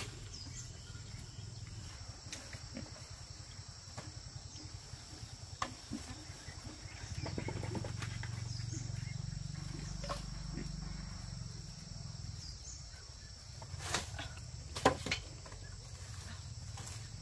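Insects chirring steadily in a high, even drone, with a low rumble swelling in the middle and a few sharp knocks near the end.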